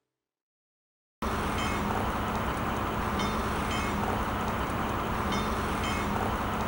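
A track-laying machine running: a steady mechanical din with a low hum, with sharp metallic ticks in pairs every second or two. It starts abruptly about a second in.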